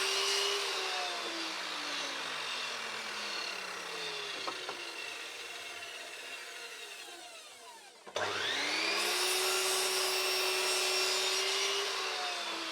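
Scroll saw running while trimming MDF. Its motor pitch falls slowly over about eight seconds, then climbs quickly back up to speed and runs steadily.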